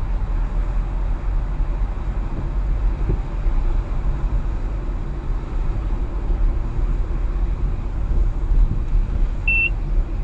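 Steady low rumble of a car's engine and tyres on a wet road, heard from inside the cabin while driving slowly. A short high beep sounds once near the end.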